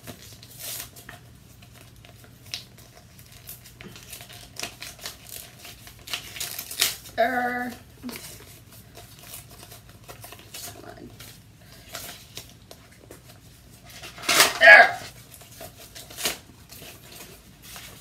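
Paper envelope being handled and torn open by hand: crackling and rustling paper, with louder tearing rustles about six seconds in and again near fifteen seconds. A brief vocal sound comes about seven seconds in.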